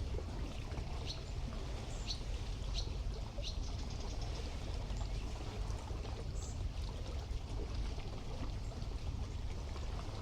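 Seawater lapping and trickling along the shore of a bay, with a low steady rumble beneath. A small bird chirps several times, short and high, between about one and three and a half seconds in.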